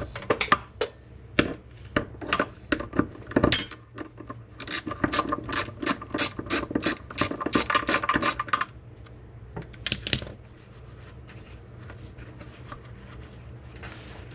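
Ratchet wrench clicking as it works the fasteners loose to free an old transmission mount on a BMW E46. The clicks are irregular at first, then come in a quick even run of about four a second for some four seconds, with a few more near the end and fainter ticks after.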